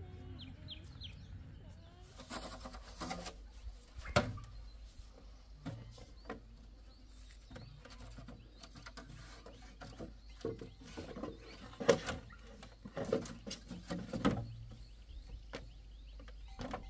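Irregular knocks and handling noises, loudest twice, with a few short bird chirps in the first second.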